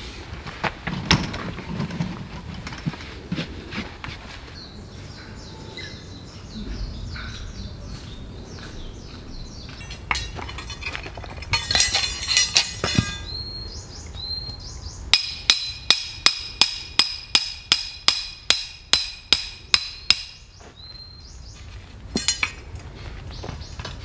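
A steel lantern-hanger pole being driven into the ground: a run of about seventeen sharp metal-on-metal strikes, about three a second, each ringing briefly. Scattered knocks and clatter come before them.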